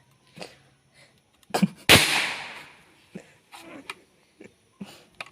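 A single shot from a 5.5 mm rifle converted to a single-shot bolt action: one sharp report about two seconds in that rings out for about a second.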